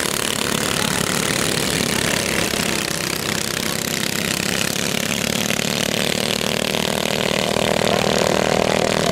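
Go-kart engines running at speed around a dirt track, a steady buzzing engine note that grows a little louder in the second half.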